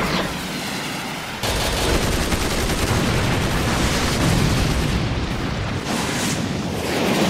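Battle sound effects from an animated tank-versus-helicopter fight: gunfire and explosions in a dense, continuous din with a deep rumble, which jumps suddenly louder about a second and a half in.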